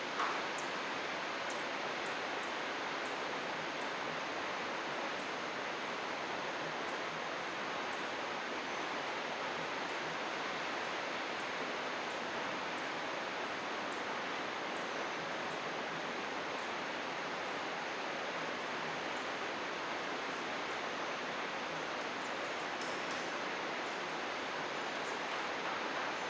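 Steady, even rush of a flowing stream, with a few faint, high bird chirps now and then.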